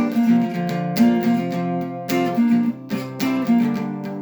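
Acoustic guitar strumming chords in a steady rhythm, with no singing: an instrumental passage of a song.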